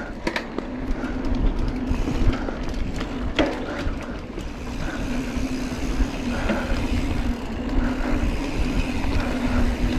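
Giant Trance 3 full-suspension mountain bike rolling along packed-dirt singletrack: wind rumble on the mounted action camera's microphone and tyre noise, with a steady low buzz and scattered rattles and knocks over bumps.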